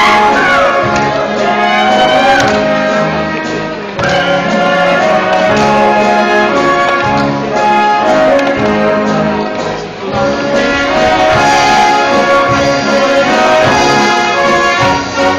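Brass band playing a Moravian folk dance tune, with sustained melody notes over a bass line.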